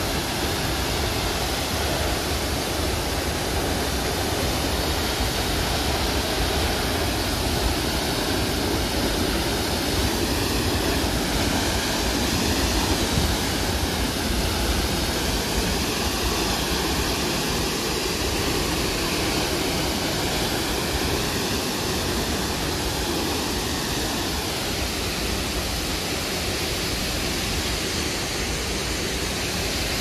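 Large waterfall in heavy rainy-season flow, a steady loud rush of falling water.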